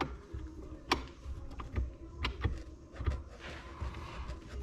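Honda CR500 engine parts being handled and fitted together: a series of sharp metal clicks and light knocks, with a short scraping rub about three and a half seconds in.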